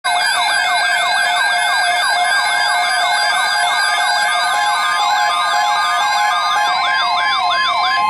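Midland NOAA weather alert radio sounding its siren alarm for an incoming alert: a loud, fast warbling siren, about three to four pitch sweeps a second. A steady tone comes in under it near the end.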